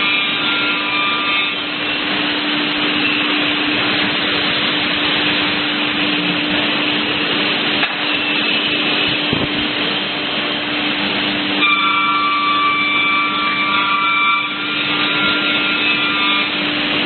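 CNC beam panel saw running and cutting wood panels: a steady machine hum under a dense sawing noise, with high whining tones near the start and again in the last third.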